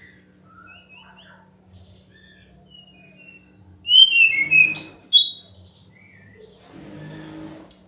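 Caged SRDC (sikatan rimba dada coklat, a jungle flycatcher) singing: scattered soft chirps, then about four seconds in a loud burst of quick, varied whistled notes lasting under two seconds. A steady low hum runs underneath.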